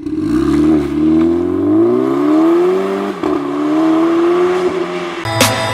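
Seat Ibiza Cupra Bocanegra's 1.4 TSI four-cylinder engine and stock exhaust accelerating, the pitch rising steadily, dipping briefly about three seconds in, then climbing again. Music takes over near the end.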